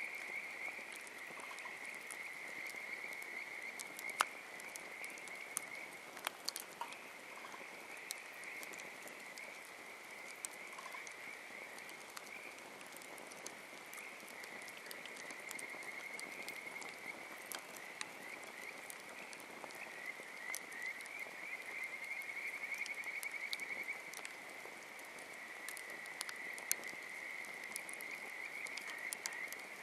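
A chorus of frogs calling continuously in a fast, pulsing trill, with scattered sharp pops and cracks from a wood campfire.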